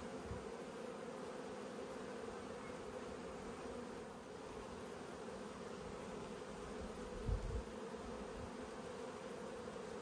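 Honey bees humming steadily around a Langstroth hive opened for inspection, its frames lifted out of the honey super. A brief low thump about seven seconds in.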